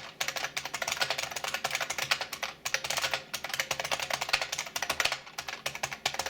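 Typing on a Unicomp buckling-spring keyboard, a clone of the IBM Model M: a rapid, continuous run of clicky keystrokes with a clunk to them.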